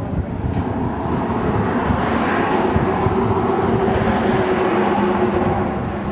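A motor vehicle passing on the road, its engine and tyre noise building up over a few seconds and easing slightly near the end.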